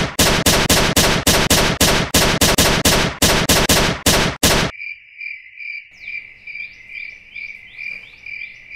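Rapid gunfire sound effect, about five shots a second, stopping about four and a half seconds in. A cricket-chirping sound effect follows, a steady pulsing high chirp: the comic silence after every shot has missed.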